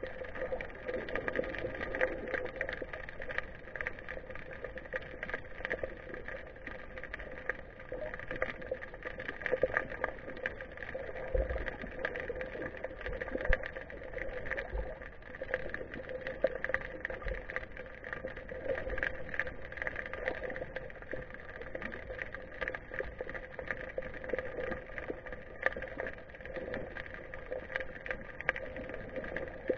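Underwater ambience picked up through a GoPro's waterproof housing: a steady hum with constant crackling clicks throughout.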